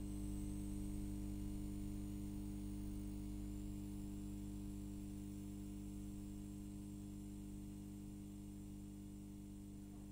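A steady low electrical-sounding hum made of several steady tones, slowly fading.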